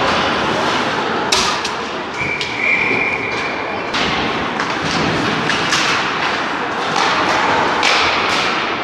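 Ice hockey rink sounds: sharp knocks and thuds of sticks, puck and boards over the constant noise of the arena. A steady, high single-tone whistle sounds for under two seconds about two seconds in.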